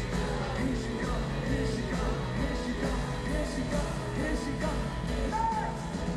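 Rock band playing live in an arena, with a man's voice singing over the band.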